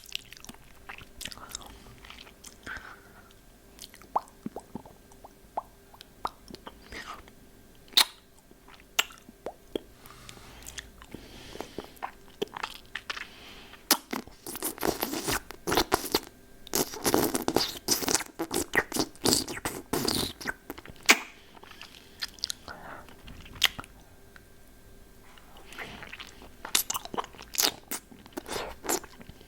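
Hard-candy lollipop eaten close to the microphone: scattered sharp clicks of the candy against the teeth, with denser stretches of crunching about halfway through and again near the end.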